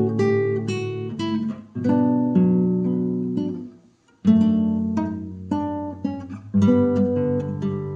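Acoustic guitar music: strummed and picked chords that ring out one after another. The sound drops out for a moment about four seconds in, then the guitar comes back.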